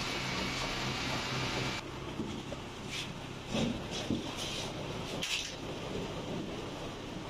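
Hands working pieces in a tray of dry breadcrumbs: a handful of short rustles and brushes of crumbs. They come over a steady background hum that drops away about two seconds in.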